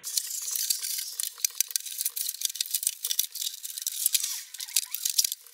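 Crackly rustling with many small sharp clicks and rattles as the packaging and panels of a flat-packed bike box are handled and unpacked.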